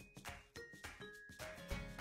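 Background music: short pitched notes in a steady rhythm, with a deep bass beat coming in near the end.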